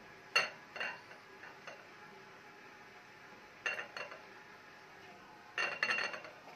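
Light clinks and knocks from a round aluminium baking tray being handled while peanuts are pressed into the basbousa batter. They come in three short clusters: about half a second in, near four seconds, and near six seconds.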